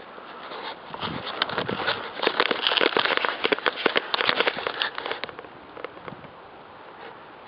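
Dry leaves and twigs crackling underfoot while moving through brush: a dense run of irregular snaps that starts about a second in and dies away after about five seconds.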